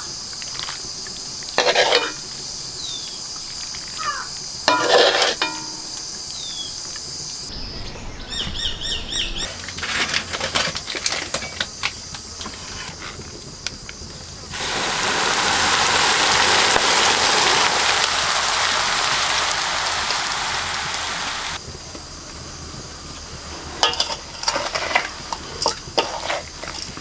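Hot oil poured over ground spices and jackfruit pieces in a steel bowl, sizzling as a steady hiss for about seven seconds in the middle. Before it, a steady high insect drone with a few bird chirps; near the end, hands mixing the pickle in the steel bowl, with light clinks and clatter.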